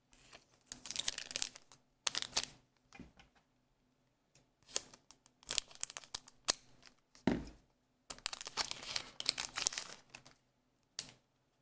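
Crinkling and rustling of a foil booster-pack wrapper in a series of short bursts.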